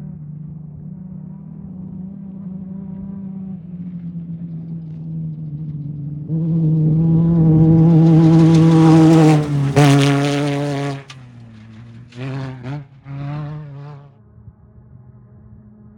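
An off-road race vehicle's engine approaches under steady throttle, grows loud and passes close by with a rush of noise, its pitch dropping slightly as it goes past. It then revs in two short bursts and fades away.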